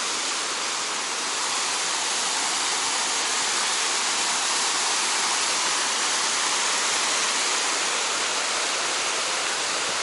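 Cascades of the Kuang Si waterfall stream rushing steadily: a loud, even hiss of falling and running water, a little louder from about a second and a half in.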